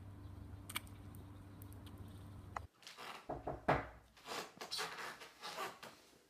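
A steady low hum with a single click, which cuts off abruptly partway through. It is followed by a run of knocks and rustles as a wooden interior door is opened and someone steps through it.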